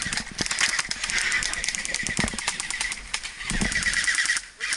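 Airsoft guns firing rapid full-auto bursts: a fast stream of sharp clicks, with two longer bursts about a second in and again near the end.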